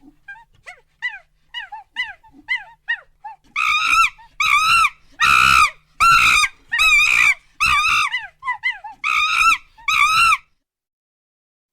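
A dog whimpering in short, falling whines, then breaking into a run of about nine louder, longer cries that stop about a second before the end.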